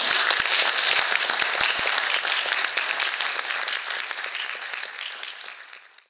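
Audience applauding, loud at first and dying away over the few seconds that follow.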